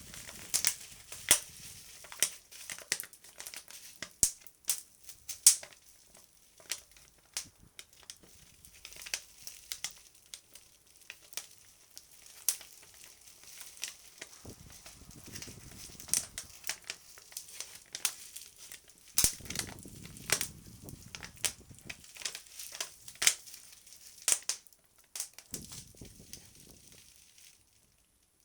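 Foley fire effect: a crinkly sheet crumpled and worked close to a phone microphone, giving a dense, irregular crackle with sharp pops. Low gusts of breath blown at the microphone come in around the middle and again near the end, filling out the roar of the flames.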